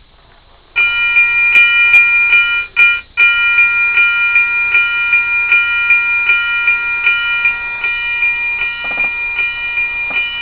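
Lionel Fastrack railroad crossing signal's bell ringing in quick, even strokes, about two and a half a second, starting about a second in, with a brief break a little under three seconds in. The bell is set off by a car entering the signal's detection block.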